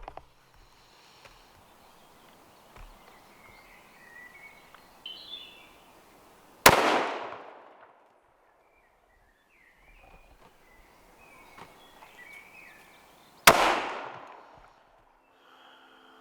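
Two rifle shots from a Weatherby Vanguard, about seven seconds apart, each a sharp crack that rings out and dies away over about a second, fired while shooting a group at 100 metres.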